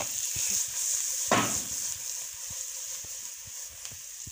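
Carrots frying in a pan with a steady high sizzle. A few short knocks and one louder scrape about a second in come from stirring.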